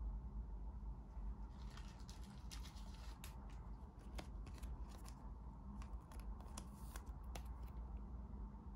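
Trading cards and pack wrappers being handled at close range: a run of small irregular clicks and snaps, with a brief crinkly rustle about two seconds in.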